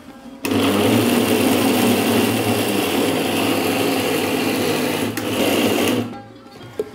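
Electric mixer grinder (mixie) running, wet-grinding moong dal and grated coconut with water in its stainless-steel jar. It starts suddenly about half a second in, runs steadily with a brief dip about five seconds in, and stops about six seconds in.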